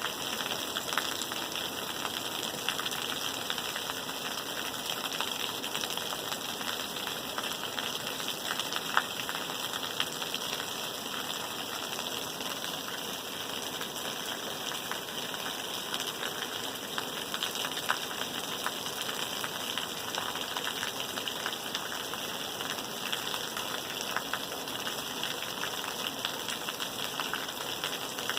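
Steady rain: an even hiss of rainfall with many small drop ticks and a few sharper drop hits.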